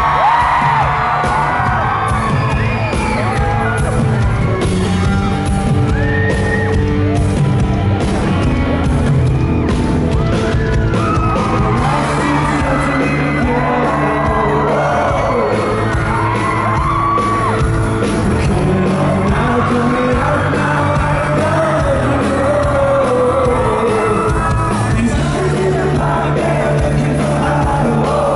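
A live pop-rock song played loud by a band, with a male lead vocal and the audience yelling and whooping, heard through a fan's recording in a large hall.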